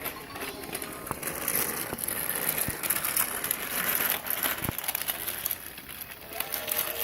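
Battery-powered VTech Go Go Smart Wheels toy train running along its plastic track: a steady motor and wheel whirr with a few small clicks.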